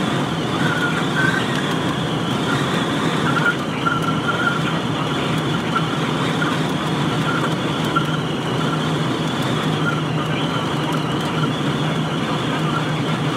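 Steady road and engine noise of a moving vehicle, heard from inside the cabin.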